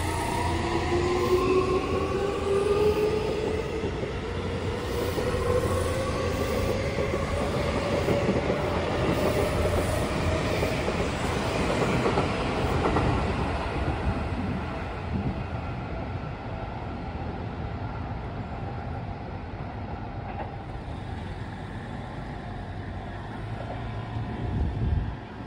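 Seibu 6000 series aluminium-bodied electric train accelerating away from the platform: its traction motors give a whine of several tones rising in pitch over the first ten seconds, with wheels clicking over the rail joints. The sound then fades as the train pulls away.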